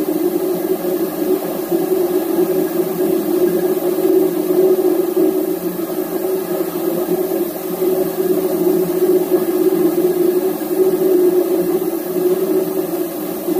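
Steady, unchanging drone of running ship's machinery, a loud even hum with a hiss over it and no breaks.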